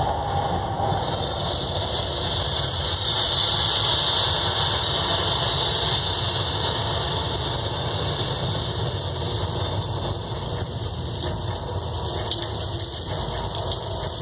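Wartime Blitz soundscape played over loudspeakers. A siren falls away in the first second, then a steady low rumble runs with a hissing roar above it, swelling a few seconds in and slowly easing.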